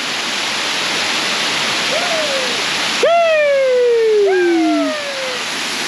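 Waterfall rushing steadily. Over it, about three seconds in, come two long falling wordless calls, the first the loudest, sliding down in pitch, with a fainter one just before.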